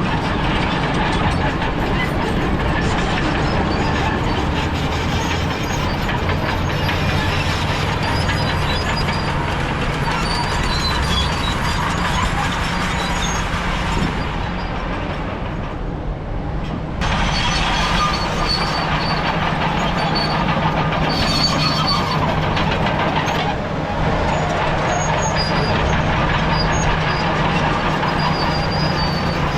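Crawler bulldozer's diesel engine running steadily under load, with a dense clatter from its tracks over it. The higher clatter drops away for a few seconds around the middle, then returns.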